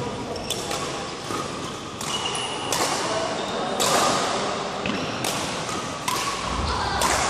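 Badminton rackets striking a shuttlecock back and forth in a rally, a series of sharp hits about once a second, with brief squeaks of court shoes in between.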